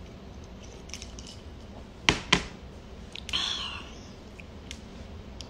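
Glass cup set down on a table with two sharp knocks about two seconds in, followed by a short breathy exhale.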